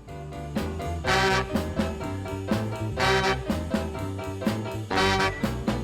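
Background music: upbeat swing tune with brass and a walking bass, accents about once a second.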